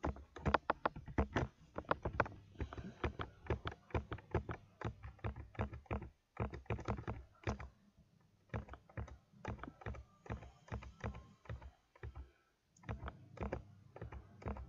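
Typing on a computer keyboard: quick, uneven runs of key clicks, with a short pause about two-thirds of the way through and another near the end.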